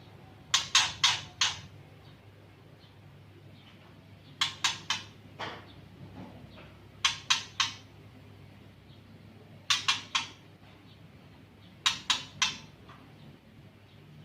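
A songbird giving harsh, clipped 'cik-cik-cik' call notes in quick runs of three or four, five runs about two and a half seconds apart, over a faint low steady hum.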